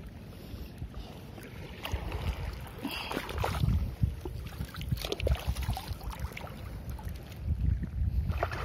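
Wading through shallow seawater: irregular splashing and sloshing as legs push through the water, growing busier about two seconds in, with wind rumbling on the microphone.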